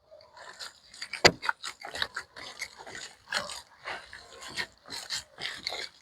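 Hands working tamale masa in a bowl: irregular soft strokes and scrapes several times a second, with one sharper knock about a second in.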